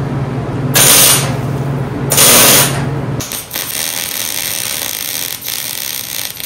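A handheld power tool running with a steady hum, twice surging into a loud hiss on the steel. From about three seconds in, a MIG welder crackles steadily as it lays a weld bead.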